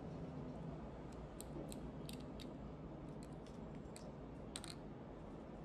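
Plastic gel-nail soak-off clip being handled: a scatter of light, sharp clicks over a low, steady room hum.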